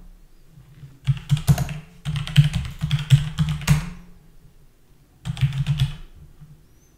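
Keystrokes on a computer keyboard: a run of quick typing for about three seconds, a short pause, then a second shorter burst of typing about five seconds in.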